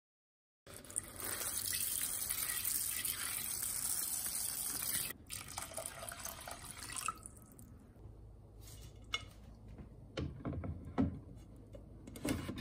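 Water pouring in a stream into a rice cooker's inner pot of rice, a steady splashing rush that stops about seven seconds in. A few light knocks and clatter follow.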